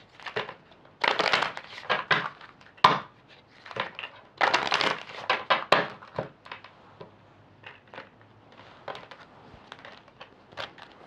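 A deck of tarot cards being shuffled by hand: irregular bursts of rustling and flicking, with a few sharp taps.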